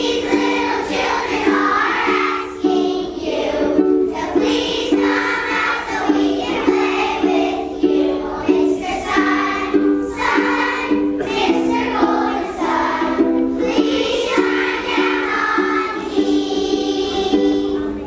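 Group of young children singing in unison, accompanied by steadily strummed ukulele chords.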